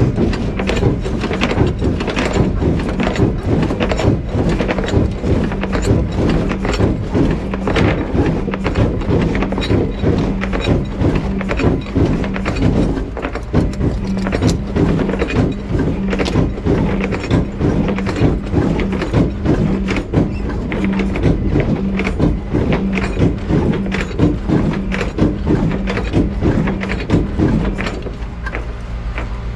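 Background music with a steady, driving beat that stops near the end.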